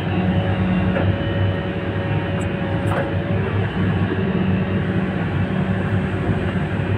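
Excavator's diesel engine and hydraulics running under load with a steady drone as the bucket digs into soil and lifts a full load of earth, with a couple of faint knocks about one and three seconds in.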